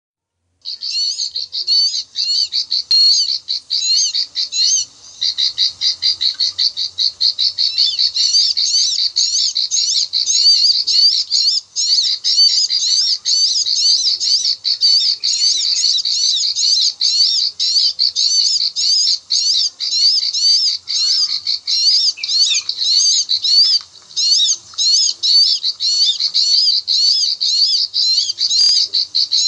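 Ciblek (a prinia) giving its 'klik-klik' call: short, sharp high notes repeated rapidly, about three a second, without a break. The notes start under a second in.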